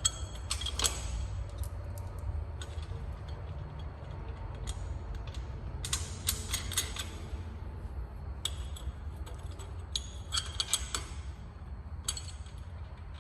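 Metal hardware clinking and clicking in short clusters as a bolt is fitted through a dock ramp hinge bracket, over a steady low rumble.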